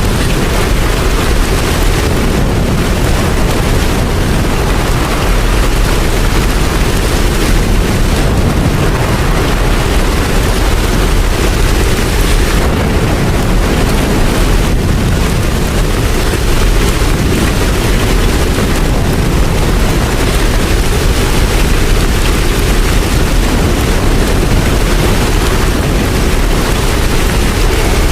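Steady heavy rain: a dense, even hiss over a deep constant rumble.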